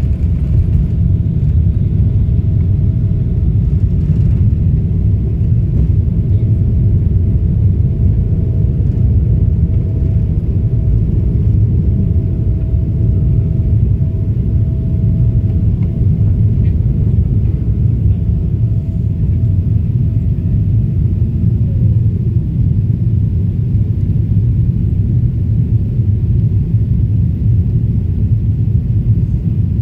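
Airliner cabin noise during the takeoff roll, liftoff and initial climb: the jet engines at takeoff power heard as a loud, steady low rumble. A faint steady whine above it drops in pitch about two-thirds of the way through.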